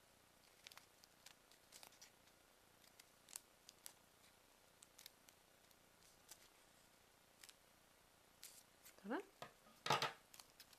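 Scissors snipping short slits into folded origami paper, a single quiet crisp snip every half second or so. Near the end come louder paper handling and a knock.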